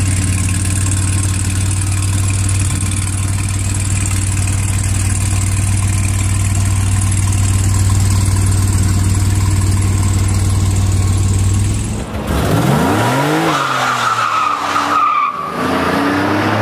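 DeLorean DMC-12's 2.8-litre PRV V6 idling steadily. About twelve seconds in it gives way to an engine revving hard in rising and falling sweeps, with a tyre squeal.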